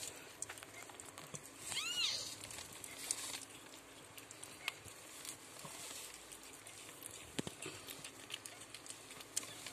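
A newborn kitten gives one short, high mew about two seconds in, rising then falling in pitch. Faint wet clicks and rustles come from the mother cat licking the newborn.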